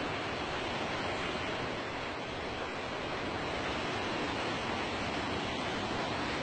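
Heavy rain pouring steadily, a constant even rushing hiss.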